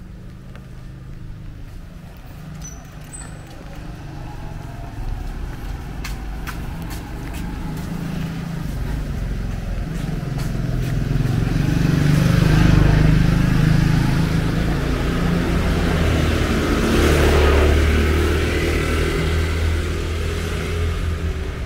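Motor vehicles passing on a wet street: engine rumble builds and tyres hiss on the wet road surface. It is loudest about thirteen seconds in and again about seventeen seconds in, then fades.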